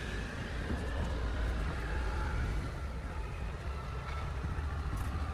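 Kubota diesel engine of a JH8035 compact crawler excavator running, a steady low rumble.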